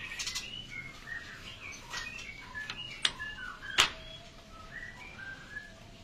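Caged songbirds chirping and giving short whistled calls, many overlapping. A sharp click comes about three seconds in and a louder one just under a second later.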